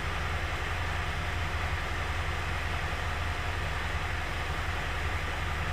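Mitsubishi L200 Triton 3.2 four-cylinder turbodiesel idling steadily, running smoothly with no timing-chain knock now that the injectors and timing chain kit have been replaced.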